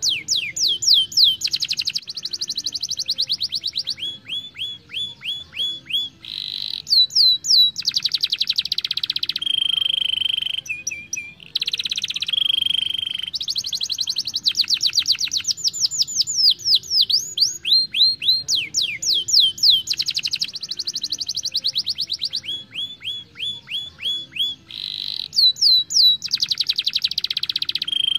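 Young domestic canary singing a continuous song of fast trills, rapid down-sweeping notes and buzzy rolls, changing phrase every second or two.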